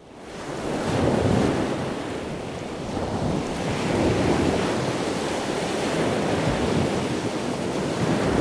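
A swelling wash of noise like surf and wind, fading in from silence over about the first second and then running on steadily: an ambient sound effect under an animated logo intro.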